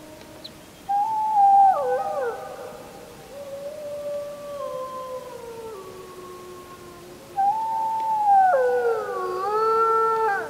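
Wolves howling in chorus: several long howls at different pitches overlap, sliding down and back up. A loud howl comes in about a second in and another about seven seconds in.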